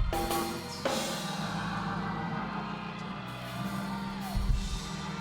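Church band music with a drum kit and cymbals over steady held chords.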